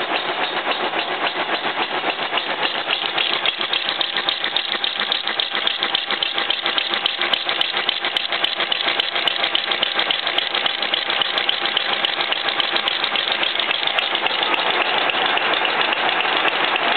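Boring-bar insert on a horizontal boring machine cutting a welded bore in close-grained half-steel, half-cast-iron at 200 RPM, giving a steady, harsh, rapid chattering rasp. This is the ugly cutting sound of the hard, chilled grain left by welding, which is hard on the inserts. It grows a little louder after about fourteen seconds.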